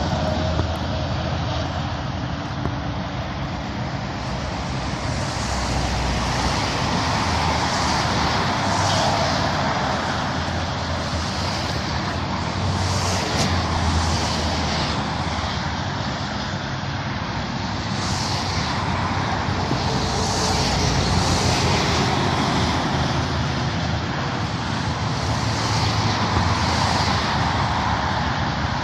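Steady road traffic, with vehicles swelling past every few seconds, over the distant drone of an approaching diesel locomotive.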